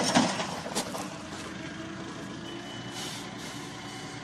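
Overturned forklift settling just after toppling onto its side: a dying clatter with a couple of sharp knocks in the first second, then a steady low mechanical noise with a faint high steady tone.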